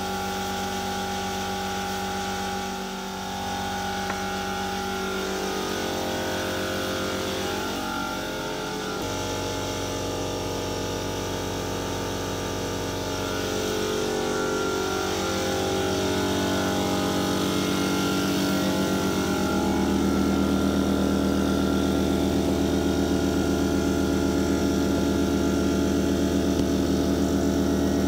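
Electric machinery humming steadily: the air compressor and ducted extraction fan running for spray painting. The pitch shifts a few times, and the hum gets louder after the middle.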